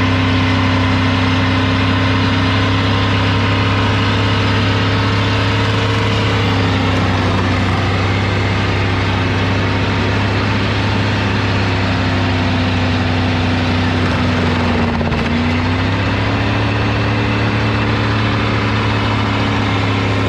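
Old Dodge truck's engine running at steady revs, the pitch sagging briefly about fifteen seconds in and then coming back up.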